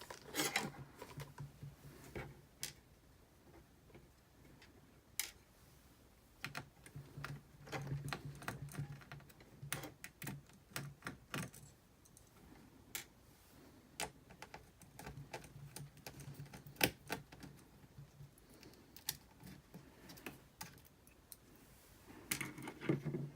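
Light, scattered clicks and taps from small screws and a laptop's plastic screen parts being handled during disassembly, with a low hum that comes and goes for a few seconds at a time.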